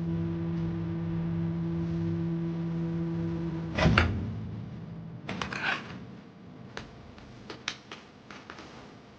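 Microwave oven running with a steady hum that stops about four seconds in with a loud clunk, as of the door being opened. A rattle of clicks and a few lighter knocks follow, like a food pouch being handled and taken out.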